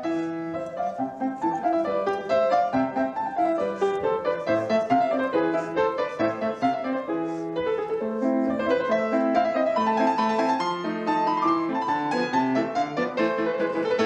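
Background piano music: a steady run of melodic piano notes.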